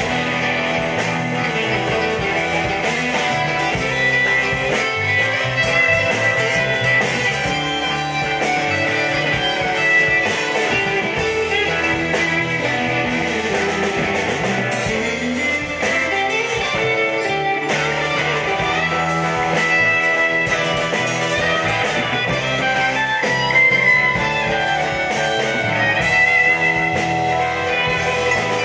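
Live blues-rock band playing an instrumental stretch without vocals, with a semi-hollow electric guitar to the fore.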